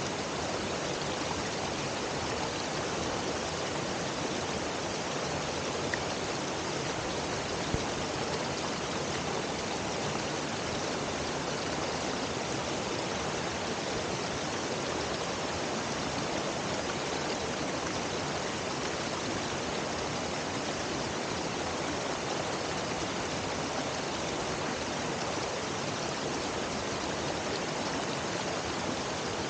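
Little stream pouring over a low rock cascade: a steady rushing wash of water.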